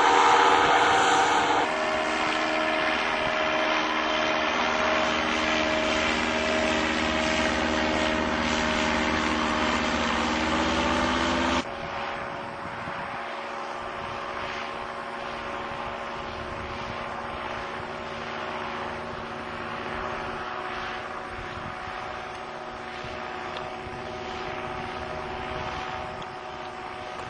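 Paramotor engine and propeller running at steady speed, a continuous drone. The sound drops abruptly in level about two seconds in and again about twelve seconds in, then holds steady.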